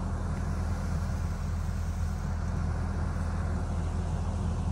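Engine running steadily, a low even drone with no change in speed.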